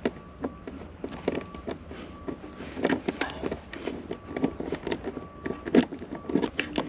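Irregular clicks, knocks and rattles of plastic and metal car parts being handled and worked loose by hand, with a faint short beep repeating in the background.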